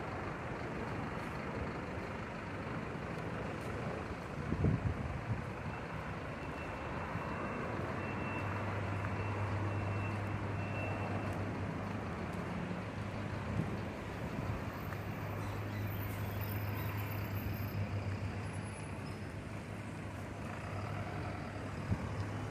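A heavy bus engine runs with a steady low hum that sets in about eight seconds in, over the general rumble of bus-station traffic. There is a single knock about four and a half seconds in.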